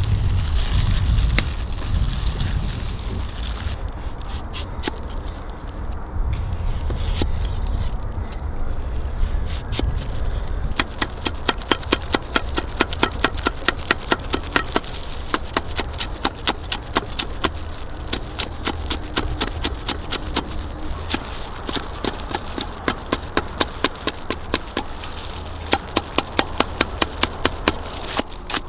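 Sharp, regular knocks at about three a second, in two runs through the middle and near the end, over a low rumble that is loudest at the start.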